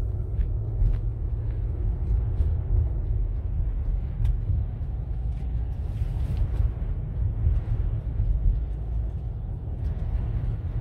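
Steady low rumble of a car driving, heard from inside the cabin: engine and road noise, with a few faint clicks.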